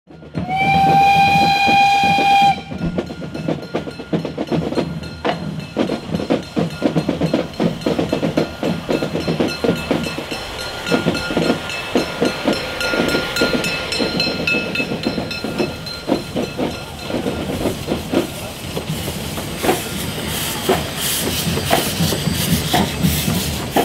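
Narrow-gauge Brigadelok steam locomotives: a steam whistle sounds one steady blast of about two seconds, then the engines chuff along with hissing steam.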